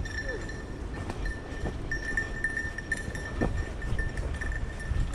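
Small bell on a hunting dog's collar jingling in a thin, steady, broken ring as the dog works the field, with a few soft knocks.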